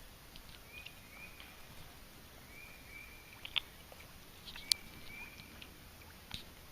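Birds chirping faintly: short wavering calls at about the same pitch repeat every second or so, with sharp higher chirps mixed in.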